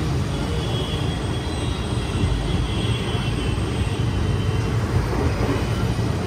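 Steady rumble and rattle of a passenger train under way, heard from inside the carriage through an open window.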